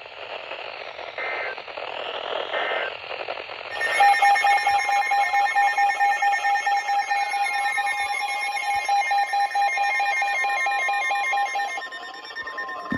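Emergency Alert System broadcast signal over weather-radio static: two short data-tone bursts, then about four seconds in a loud electronic alert sound of several steady tones, one pulsing rapidly, with warbling and sweeping tones layered over it.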